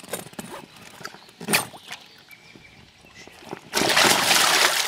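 A carp kicking free of a retainer sling in shallow water: loud splashing that breaks out nearly four seconds in. Before it, quieter sloshing of the sling in the water and one short sharp sound about a second and a half in.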